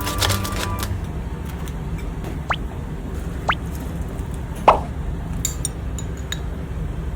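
Three short wet plops about a second apart, the last the loudest, over a steady low hum, with a few light clicks after them.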